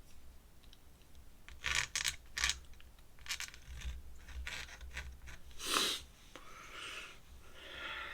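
Drawing tool scratching on paper in short separate strokes, with a longer, louder stroke about six seconds in and a softer rubbing stretch near the end.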